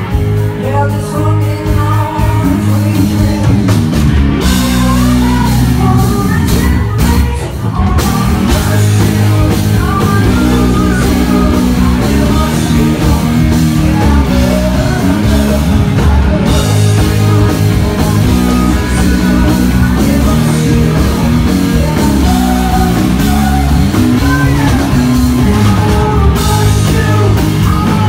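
Live rock band playing loudly: a woman singing into a microphone over electric guitar and drums.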